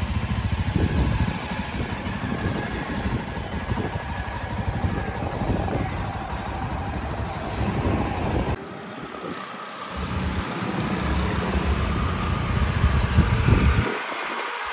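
Yezdi Adventure's 334 cc single-cylinder engine running, its exhaust note carrying as the bike is ridden off slowly. The sound dips for about a second a little past halfway, then builds to its loudest just before it falls away near the end.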